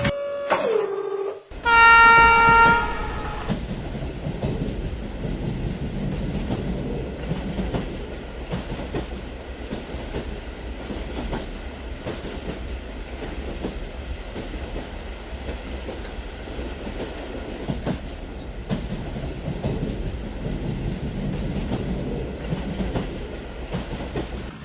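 A train horn sounds one loud blast about two seconds in. The train then runs on at a steady pace, rumbling, with the clickety-clack of wheels over rail joints.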